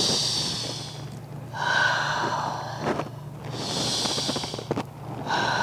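A woman breathing slowly and audibly through a yoga pose: two full breaths in and out, each breath a long, airy hiss.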